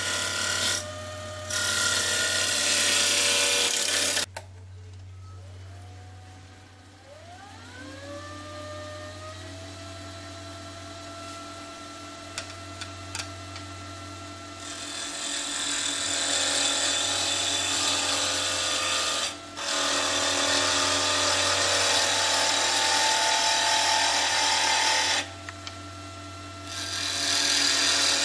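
Charnwood W821 midi woodturning lathe at work: a chisel cuts a spinning wood spindle with a loud, even shaving noise for the first few seconds. After a sudden drop, the electronic variable-speed motor's whine rises in pitch as the lathe is brought up to speed, then holds steady. From about halfway the chisel cuts small pen blanks, with two short breaks where the tool comes off the wood.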